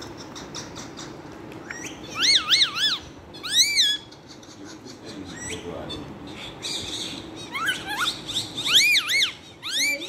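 Ring-necked parakeet calling: high-pitched notes that rise and fall sharply, in quick runs of two or three, about two seconds in, again near four seconds, and a longer run near the end.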